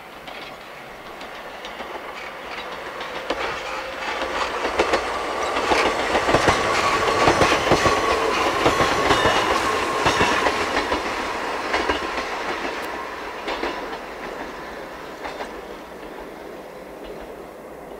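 A Yoro Railway electric train passing by, its wheels clicking over the rail joints. It grows louder to a peak with a steady whine, then fades away as it leaves.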